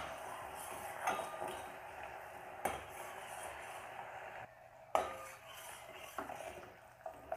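Steel ladle stirring boiling sugar syrup in a stainless steel pan, clinking sharply against the pan several times, the loudest clink about five seconds in. Under the clinks runs a steady bubbling hiss from the boiling syrup.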